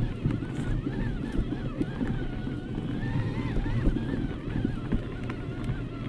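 Specialized Turbo Kenevo SL electric mountain bike ridden over a forest trail: a steady rumble of tyres and wind on the microphone, full of small knocks and rattles from the bumps. A faint whine wavers up and down in pitch over it.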